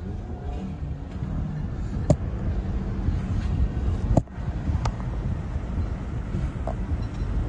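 Car driving fast, with a steady low engine and road rumble and wind noise. A few sharp knocks cut through, the loudest about four seconds in.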